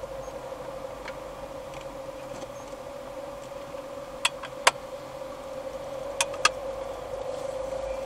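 Car driving, heard from inside the cabin: steady engine and tyre noise with a constant hum. Two pairs of sharp knocks come about four and six seconds in.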